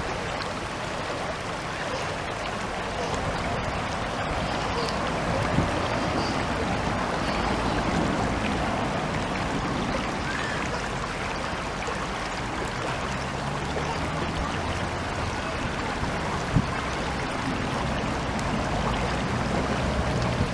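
Water of a mountain spring-fed stream flowing in a steady, even rush. A low steady hum joins in about twelve seconds in.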